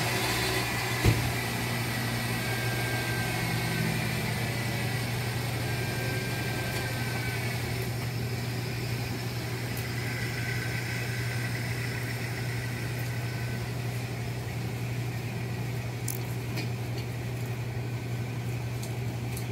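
A steady low mechanical hum, like a motor or engine running at idle, with a single sharp click about a second in.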